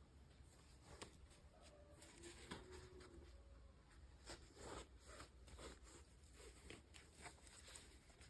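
Faint handling of packaging: scattered small clicks and rustles, a little busier in the second half.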